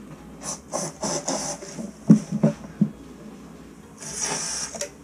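Canned compressed air blown in short hissing bursts into drilled anchor holes in a concrete floor, clearing out the drilling dust before Tapcon screws go in, then one longer hiss near the end. Three dull knocks come in between, about two seconds in.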